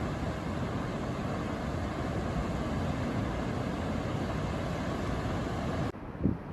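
Steady rushing noise of wind and heavy surf from a typhoon swell, cutting off abruptly near the end, followed by a short low thump.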